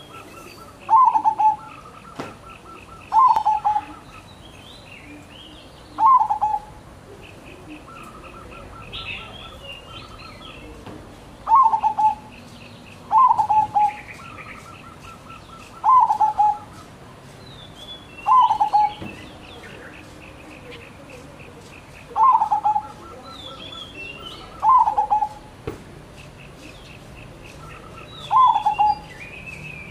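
Caged dove cooing in about ten short phrases of quick notes, a few seconds apart. Other small birds chirp and trill more faintly in the background.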